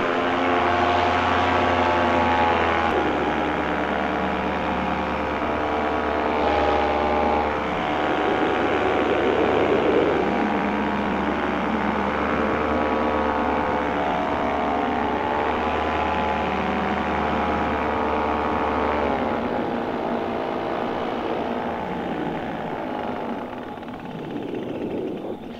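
Paramotor's two-stroke engine and propeller running in flight, the engine note dropping and picking up again as the throttle changes, then dropping lower about three-quarters of the way through as the throttle is eased back.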